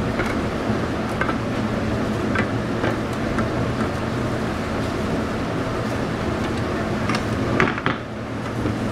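Steady low machine hum under scattered light clinks and taps of plates and utensils as roast goose is pulled apart by hand. A louder clatter of a few clicks comes near the end.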